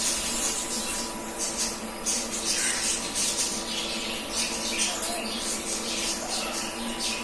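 TIG welding arc on aluminium: a steady buzz with a crackling hiss that flares and fades irregularly.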